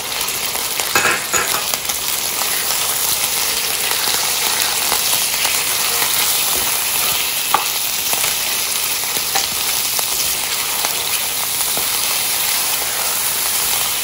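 Raw mutton pieces sizzling in hot oil in a non-stick karahi as they are stirred and lightly seared (bhuna), with a few short scrapes of the spoon against the pan.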